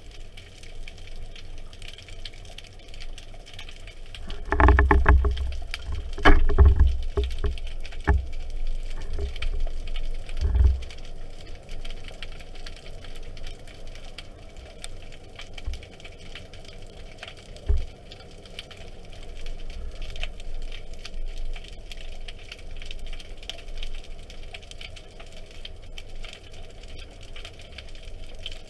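Underwater sound picked up by a camera in its waterproof housing: a steady faint crackle, with a run of low knocks and thumps from about four to eleven seconds in and one more knock later.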